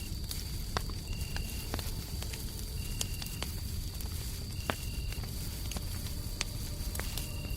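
Fireplace crackling with scattered sharp pops over a steady low rumble of white noise, while crickets keep up a steady high trill with short chirps every second or two.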